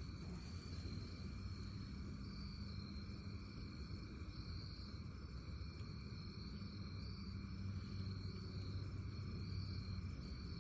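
Steady outdoor insect chorus of cricket-like chirring, with a continuous low rumble underneath.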